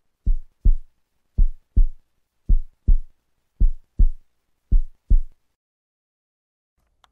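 Heartbeat sound effect: five double thumps, lub-dub, deep and short, about one pair a second.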